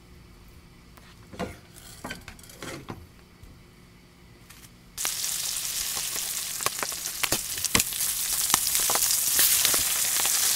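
Flounder frying in butter in a pan: a quiet start with a few light knocks, then about halfway in a loud sizzle with fine crackles and pops sets in abruptly and grows slightly louder.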